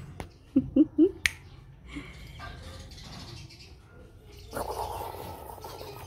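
Plastic bag lining a mesh bin rustling as a rose-ringed parakeet pokes its beak into it, with three short low voice-like sounds about half a second in and a sharp click just after them. The rustling is strongest near the end.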